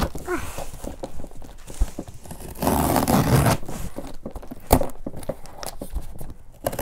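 Packing tape on a cardboard box being slit and pulled open, with scattered knocks and clicks from handling the box. A louder rasp of tape tearing comes about three seconds in.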